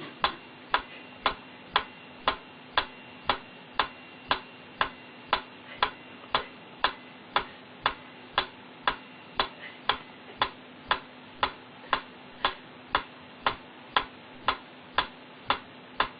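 Metronome ticking at a steady beat of about two clicks a second, every click alike, over a faint steady hum.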